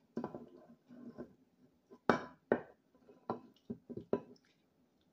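A stainless steel saucepan clinks and knocks against a ceramic baking dish about half a dozen times while brown-sugar sauce is poured from it. The loudest knock comes about two seconds in.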